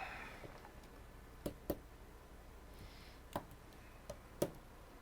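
Five short, sharp clicks at uneven intervals: two close together about a second and a half in, then three more over the following three seconds, over a faint steady hum.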